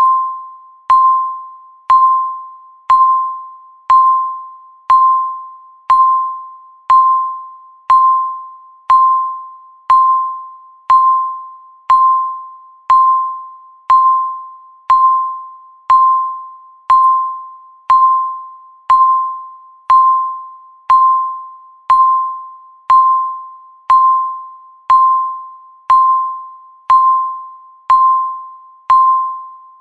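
Countdown timer beeping once a second: a short, clear electronic beep with a sharp start that fades away before the next one.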